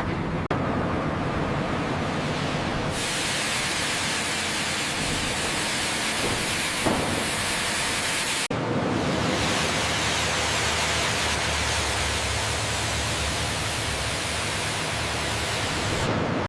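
Steady, dense hissing noise that changes abruptly in tone a few times, brightening about three seconds in and briefly dulling about eight and a half seconds in.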